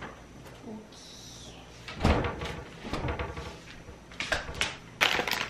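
A tall panelled kitchen cabinet door being swung shut with a heavy thud about two seconds in, followed by knocks and clatter of items being handled, and a louder burst of noise near the end.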